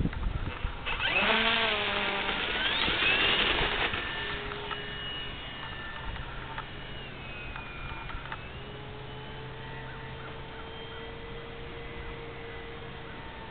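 Electric motor and propeller of an FMS Sbach 342 RC plane throttling up for takeoff, a loud rising whine from about a second in, then a fainter motor tone that wavers in pitch as the plane flies away.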